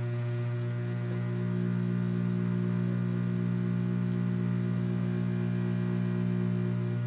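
Steady electrical mains hum: a low drone with a few higher overtones, getting slightly louder about a second and a half in.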